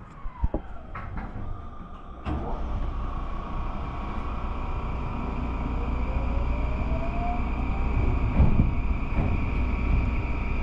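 Electric commuter train leaving the station. A few knocks as the doors shut, then a louder clunk about two seconds in as it moves off. A steady rumble follows, with a motor whine that rises in pitch as the train picks up speed.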